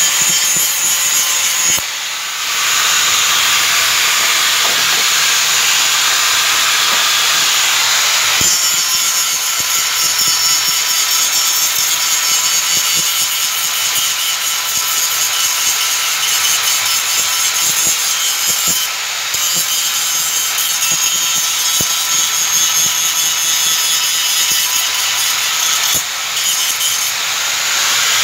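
Handheld angle grinder running continuously, its disc grinding the chrome plating off a grille trim strip so that body filler will stick. The steady motor whine and grinding noise ease briefly a few times.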